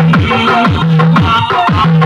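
Electronic DJ dance music played very loud through a large DJ sound system, with repeated bass hits that slide down in pitch under a held bass note and a high synth melody.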